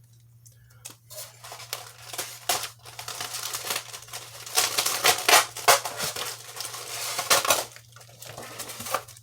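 Plastic packaging crinkling and rustling as small kit parts are handled and unwrapped, in irregular bursts that begin about a second in and are loudest a little past the middle.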